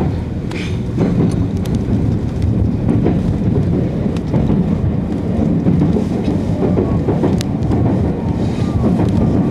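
Tokyu Toyoko Line train running, heard from inside its cab: a steady rumble of wheels on rail, with a few sharp clicks scattered through it.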